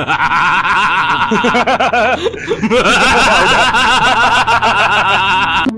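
Loud, long evil laughter in rapid 'ha-ha' pulses, with a short break about two seconds in.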